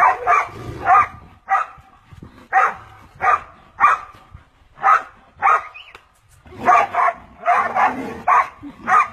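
A dog barking over and over, about one to two barks a second and often in quick pairs, with a short pause about six seconds in.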